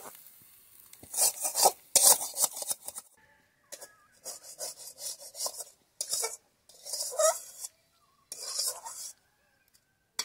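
Flat metal spatula scraping the inside of a metal wok (karahi) in a series of rasping strokes with short gaps between them.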